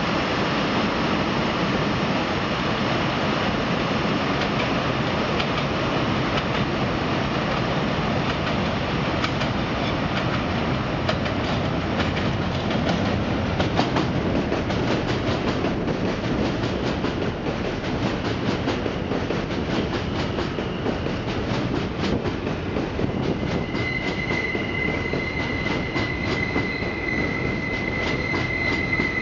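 Alstom R160A-2 subway trains running on elevated track: a steady rumble of steel wheels on rail, with rapid clicks as a train passes close by. In the last few seconds a steady high squeal sets in.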